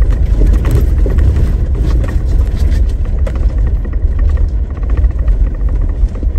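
Jeep Rubicon driving slowly over a rough gravel logging road, heard from inside the cab: a steady low rumble with many short clicks and knocks from the rough ground.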